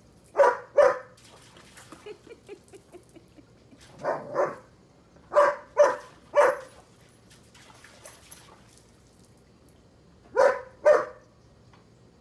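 A dog barking in short bursts, mostly two barks at a time, about nine barks in all, with pauses of one to four seconds between the groups.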